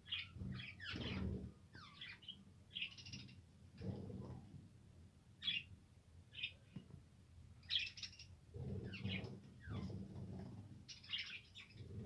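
A flock of budgerigars chirping and chattering in many short calls, with some low rumbling noise in between.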